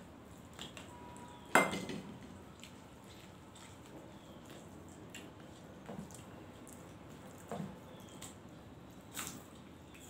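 Stainless steel bowls and plates clinking at a meal eaten by hand. One sharp metallic clank with a brief ring comes about one and a half seconds in, then a few lighter clinks and taps.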